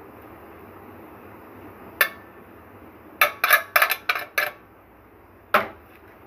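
Sharp clinks and taps of a kitchen utensil against hard surfaces while the plates of an open electric waffle maker are greased with a pastry brush: one about two seconds in, a quick run of about eight between three and four and a half seconds in, and one more near the end.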